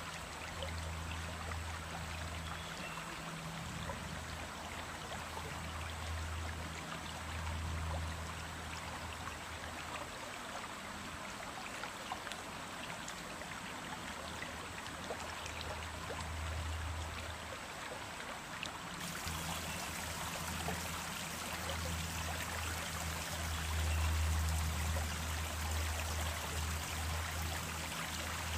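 Small stream flowing steadily over stones, with a continuous splashing, trickling rush of water. A low rumble comes and goes underneath it.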